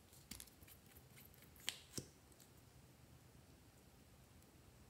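A plastic mascara tube being handled and opened, giving a few faint clicks, the two sharpest close together about two seconds in, over near silence.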